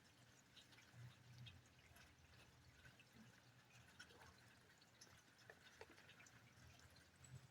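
Near silence: a faint low hum with scattered faint ticks of dripping rainwater.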